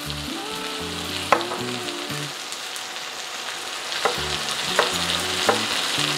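Vegetables sizzling in hot oil in a wok, with a chef's knife slicing a shallot on a wooden cutting board: one sharp knock about a second in, then three evenly spaced knocks in the second half.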